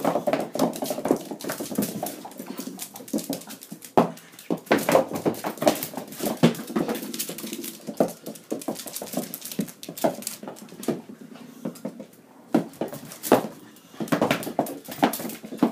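Small dogs scrambling and playing on a hard floor, with a steady run of irregular clicks and taps from their claws and small bouncing objects hitting the floor.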